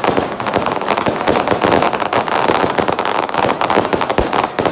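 Fireworks crackling: a dense, continuous run of rapid pops and cracks with no break.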